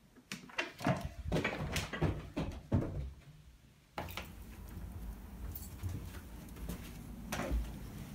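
A door's knob and latch turned and clicked as the door is opened: a quick run of clicks and knocks over about three seconds. After a short lull, a steady low background noise with a few light knocks and one louder thump near the end.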